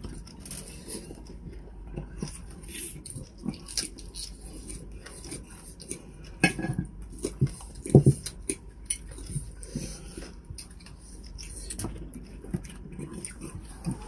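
Fork and knife clinking and scraping against plates and a salad bowl during a meal, in scattered short knocks, the loudest about six and a half and eight seconds in.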